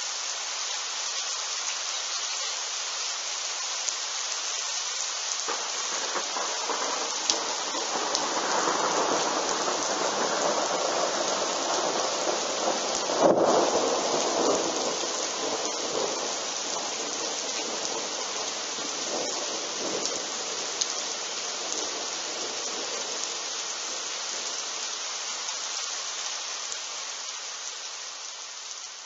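Steady heavy rain with a long roll of thunder. The thunder rumbles in about five seconds in, builds to a sharp crack about halfway through, then slowly dies away under the rain.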